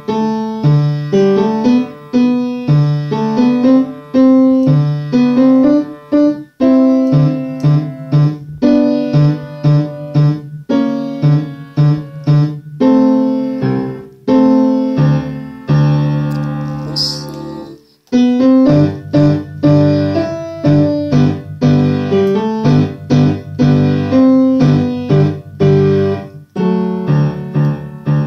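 Upright piano played by a beginner child, both hands: a simple piece with a repeated low bass line under a melody. About halfway through it settles on a held chord for a couple of seconds, then the playing goes on.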